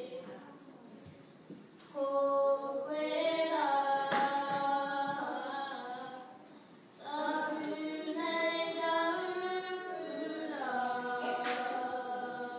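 A singer with a high voice performing in two long phrases of held, gliding notes. The first phrase starts about two seconds in, and the second follows a short break near the middle.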